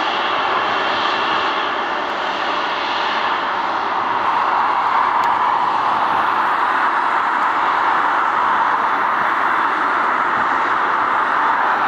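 Boeing 777-300ER's GE90 turbofan engines running at low taxi power as the airliner rolls slowly past, a steady jet rush that grows a little louder about four seconds in.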